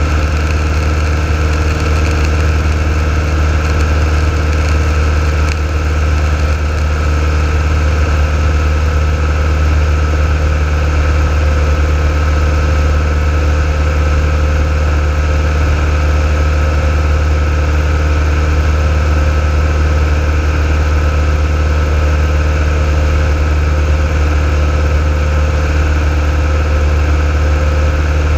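Piston engine and propeller of a single-engine light aircraft running steadily in flight, heard from inside the cockpit as a loud, even drone.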